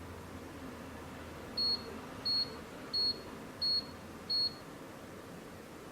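Digital multimeter's continuity beeper: five short, high-pitched beeps, evenly spaced about 0.7 s apart.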